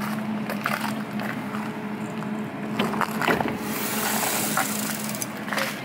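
A stopped Lidingö-line tram humming steadily at a standstill, with footsteps on the platform beside it and a breathy hiss a little past the middle.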